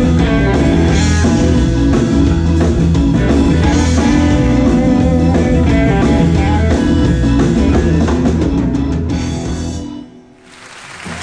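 Rock'n'roll band playing live: electric guitars, keyboard, upright bass and drums, with quick drum hits building to the song's ending. The music cuts off about ten seconds in, and audience applause begins just before the end.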